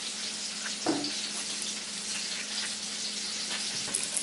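Chicken breasts sizzling steadily as they fry in a pan, under a low steady hum, with one brief knock about a second in.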